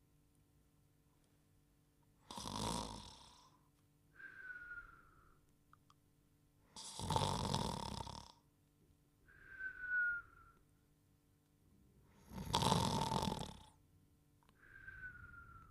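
Cartoon snoring: three loud snores, each followed by a short whistle that slides slightly down in pitch on the out-breath, repeating about every five seconds.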